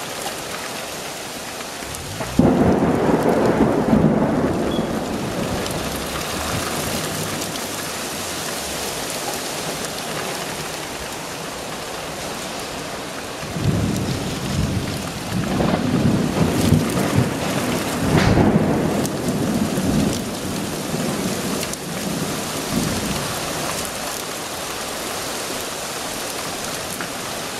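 Thunderstorm: rain falling steadily throughout, with two peals of thunder. The first breaks suddenly about two seconds in and rumbles for a few seconds; the second, longer one rolls from about halfway through for around six seconds, swelling twice.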